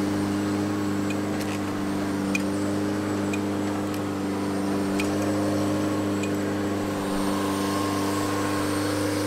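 Articulating boom lift running steadily while its platform is driven from the basket controls: an even mechanical hum with a few faint ticks.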